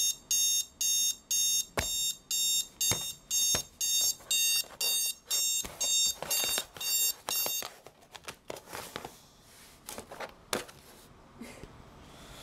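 Digital alarm clock beeping in a steady high-pitched pattern, about two beeps a second. The beeping cuts off about seven and a half seconds in as a hand slaps at the clock, followed by scattered clicks and knocks as the clock is handled.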